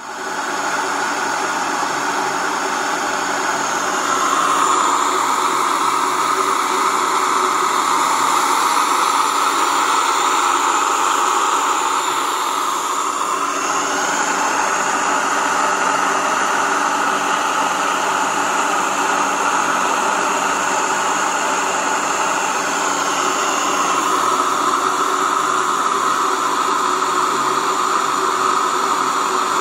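Waldner BioTech Single electric grain mill running and grinding millet into flour: a loud, steady whirring noise that starts abruptly, its tone shifting a few times.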